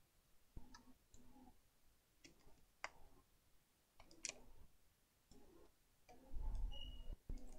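Faint scattered clicks and light taps of small repair tools working on an iPhone 6 as it is taken apart, with a few short low hums between them and a louder low rumble near the end.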